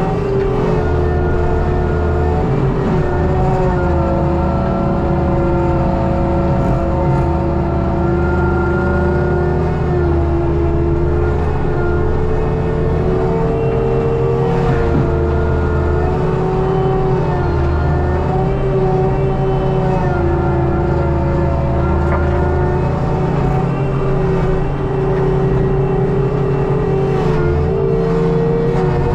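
ASV RT120 compact track loader with a Fecon forestry mulcher running steadily, heard from the operator's seat: a loud, even engine and hydraulic drone with a whine that drifts slowly up and down in pitch over a low rumble that swells and drops.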